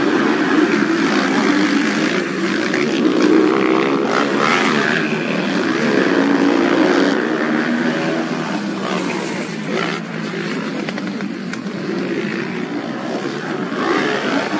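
Several motocross motorcycle engines running and revving up and down together, their pitches overlapping as the bikes race around a grass track.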